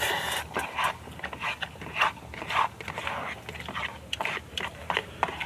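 Someone eating spicy instant stir-fried noodles: irregular chewing, with short wet smacks and mouth clicks.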